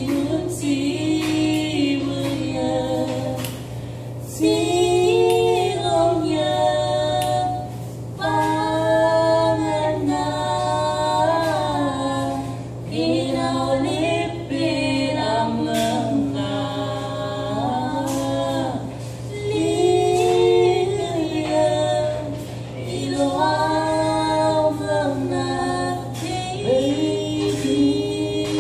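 A woman and a man singing a song together a cappella, in phrases a few seconds long with short breaths between them. A steady low hum runs underneath.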